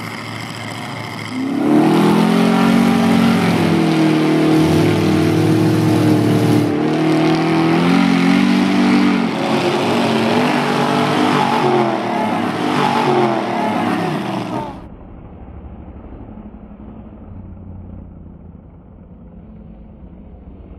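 Mud-bog truck engine revving hard, its pitch swinging up and down for about thirteen seconds. Near the end it cuts off abruptly to a much fainter, muffled low engine rumble.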